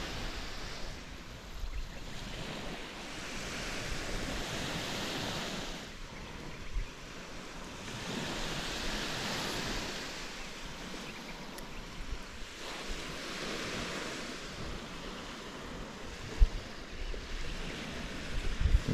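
Small waves breaking and washing up a sandy shore, swelling and fading every four to five seconds, with some wind buffeting the microphone. One short knock about sixteen seconds in.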